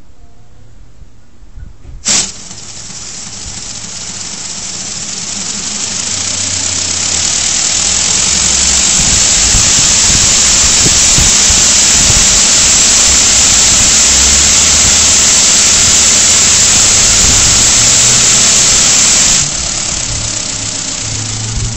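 Lego Technic model V8 engine, driven through its cables, clattering as its plastic pistons and crank turn. A click about two seconds in, then the clatter grows louder over several seconds as it speeds up, runs steadily, and drops sharply to a lower level about two seconds before the end.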